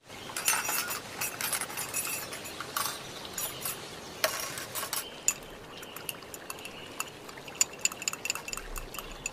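Kitchen utensils clinking and scraping: a run of short scraping sounds in the first half, then sharp separate clinks and clicks, coming thicker near the end.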